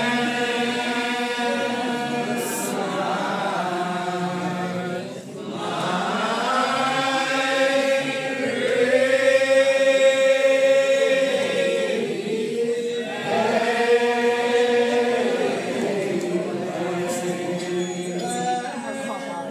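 Old Regular Baptist congregation singing a lined-out hymn in slow unison, each syllable drawn out in long notes that slide slowly from pitch to pitch. There are short breaks about five and twelve seconds in.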